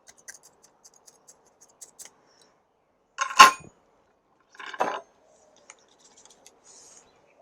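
Systemic insecticide granules being sprinkled by hand around a potted succulent's root ball: faint scratching and ticking against the potting mix, with two short clattering rattles about three and a half and five seconds in.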